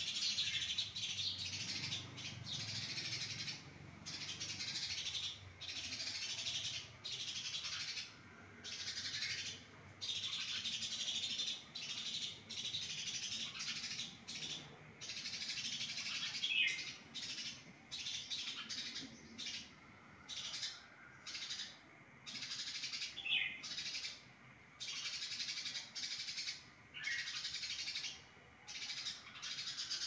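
House sparrows chirping busily at a hanging nest pot, in bouts of about a second broken by short pauses, with a few louder single chirps standing out.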